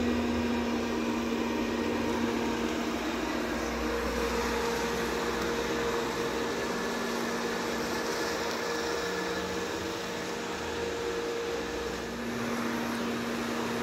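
Robot vacuum cleaner running: a steady hum over an even whirring noise, dipping slightly about twelve seconds in.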